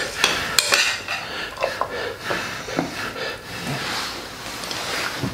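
Spoons clinking and scraping against plates while people eat, with a few sharp clicks in the first second.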